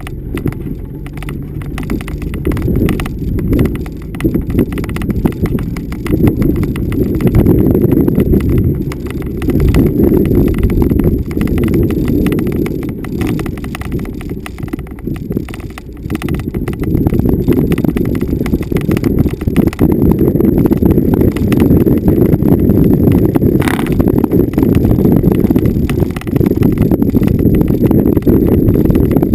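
Vehicle driving over bumpy off-road terrain: a low rumble full of rapid, irregular knocking and rattling from the jolts, louder from about halfway through, with one sharp click about three-quarters of the way in.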